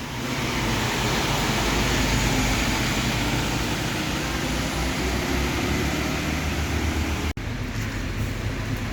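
Passing bus's engine rumble and road noise, a steady loud wash of traffic sound. About seven seconds in it breaks off for an instant, then the traffic noise carries on a little quieter.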